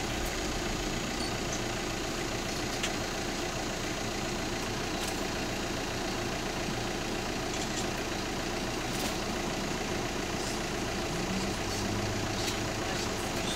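Tour bus engine idling steadily, heard from inside the bus cabin. A deeper hum swells briefly near the end.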